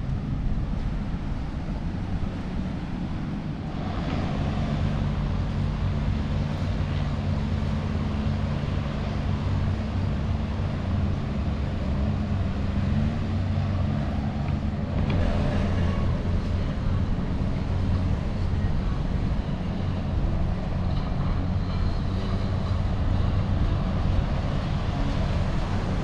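A boat engine running steadily, a low droning hum that grows stronger about four seconds in, over a steady rush of noise.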